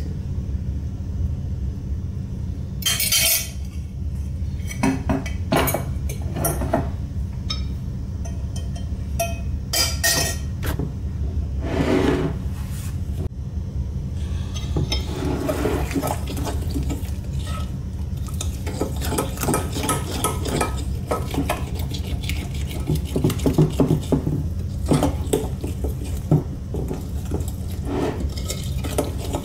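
Metal spoon clinking and scraping against a glass mixing bowl as thick pancake batter is stirred. Scattered clinks at first, then a fast, steady run of clinks through the second half, over a low steady hum.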